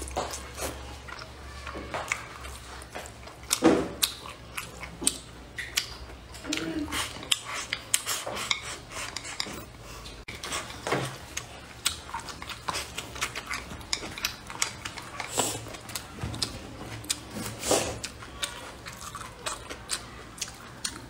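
Close-up mouth sounds of someone chewing braised pork belly, with wooden chopsticks clicking and scraping against a ceramic bowl. The clicks are short, sharp and irregular, scattered all through.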